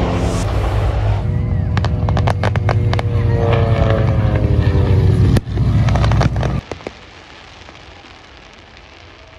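A V-22 Osprey tiltrotor's low, loud rotor and engine noise during a low pass. After about a second, a run of sharp fireworks bangs and crackles comes in over a low drone with a slowly falling tone. The loud part cuts off abruptly about two-thirds of the way through, leaving fainter crackling.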